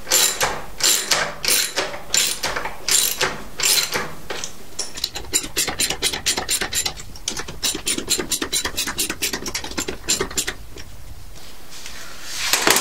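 A ratchet socket wrench clicks as bolts are tightened. There are spaced groups of clicks in the first few seconds, then a quicker, even run of about five clicks a second that stops about two-thirds of the way through.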